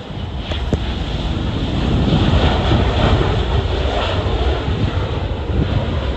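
Jet airliner engines roaring as the aircraft passes, swelling over the first two seconds, mixed with gusty wind buffeting the microphone.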